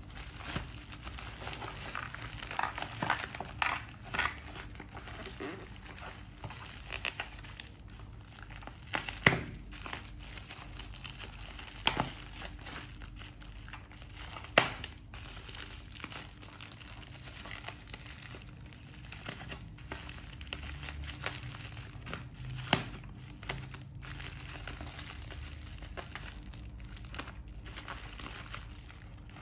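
Plastic shipping package wrapped in clear plastic wrap crinkling and rustling as it is handled and cut open with scissors, with a few sharp, louder clicks.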